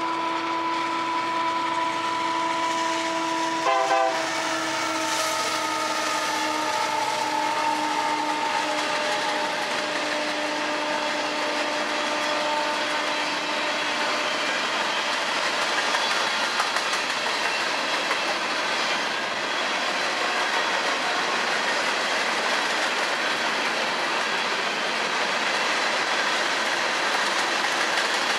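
Freight locomotive's air horn sounding a long steady blast that drops in pitch about four seconds in as the locomotive passes, then fades out over the next ten seconds. Under it and after it, the steady rumble and clatter of covered hopper cars rolling by on the rails.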